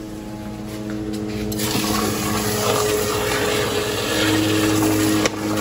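Water rushing and splashing in a small aquarium as a quarter-horsepower sump pump drains it and a hose refills it, over the pump's steady hum. The water noise swells about one and a half seconds in.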